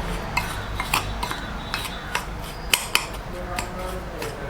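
Spoon stirring a dry powder mixture of ground herb and jaggery in a bowl. It makes irregular small clinks and scrapes against the bowl, with a couple of sharper knocks near the end.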